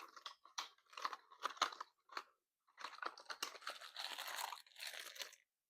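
A small blind box being unpacked by hand: crisp crinkling and crackling of the packaging in short bursts, getting busier in the second half.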